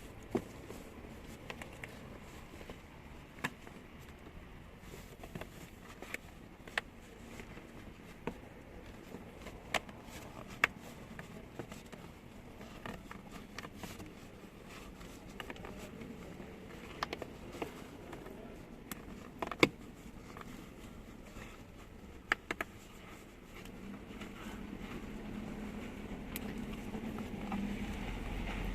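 Scattered clicks, taps and rustling of hands working a lengthwise-split rubber hose onto the seat cushion's side frame, where it had been rubbing on the plastic trim and squeaking. A low steady hum comes in near the end.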